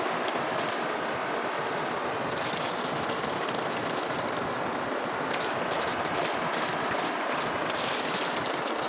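River water rushing steadily, with water splashing and pouring from a bowl that is being rinsed in the current.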